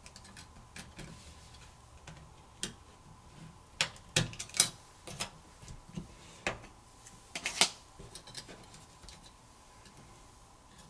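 Scattered small clicks and taps as an internal cover is lifted off the opened Samsung Galaxy Z Flip smartphone during disassembly, about a dozen at irregular intervals, thickest in the middle of the stretch.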